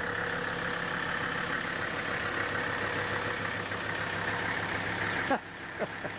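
A motor running steadily, a low hum with a hiss over it, that cuts off abruptly about five seconds in, followed by a few faint short sounds.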